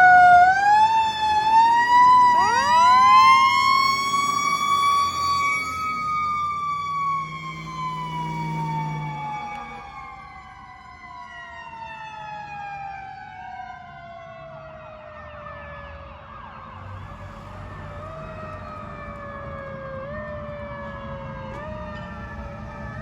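Fire company house siren wailing: it winds up quickly to a high pitch, then slowly winds down over about ten seconds to a much lower pitch, and near the end starts to climb again in small steps.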